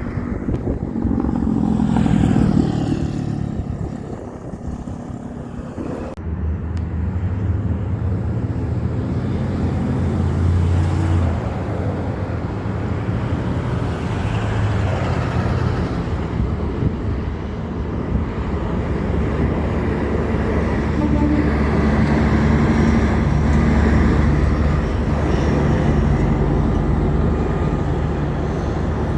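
Heavy truck engines running, with low steady engine tones throughout and an abrupt change to a different truck sound about six seconds in.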